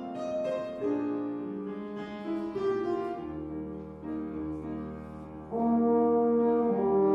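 Piano accompaniment playing alone at first, then a baritone horn comes in near the end with loud sustained notes over the piano.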